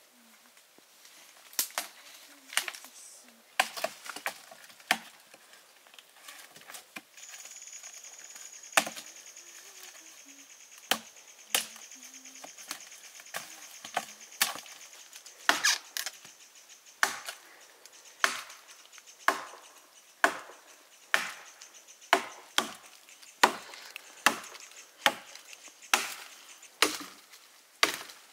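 Repeated chopping strokes of a blade into wood. They come irregularly at first, then settle into a steady rhythm of about one stroke a second.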